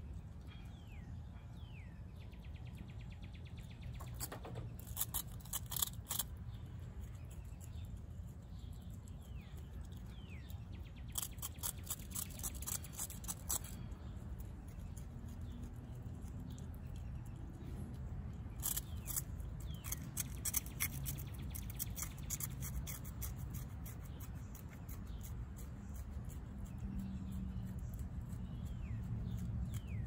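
Virginia opossum chewing food, in three bouts of rapid clicking smacks a few seconds apart.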